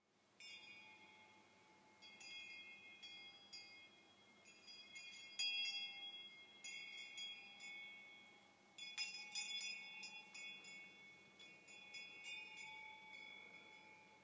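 Quiet chimes struck at irregular moments, each strike sounding several high ringing tones that carry on between strikes, with a faint steady low tone beneath.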